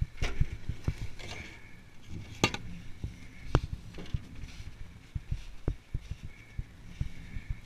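Footsteps crunching through snow in an irregular walking rhythm, with a couple of sharper clicks.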